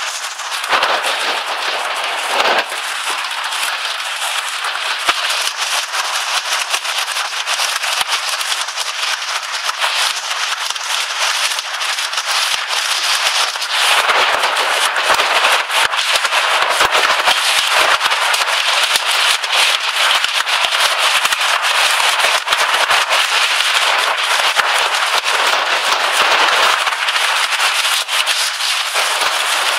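Hailstorm: hailstones pelting the carport roof and the ground in a dense, continuous rattle of impacts, growing heavier about halfway through.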